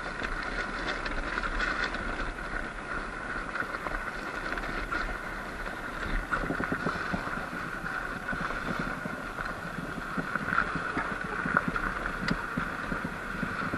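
Sur-Ron X Light Bee electric dirt bike riding over soft, sandy ground: a steady motor whine over tyre and chassis rattle, with scattered clicks and a little wind on the microphone.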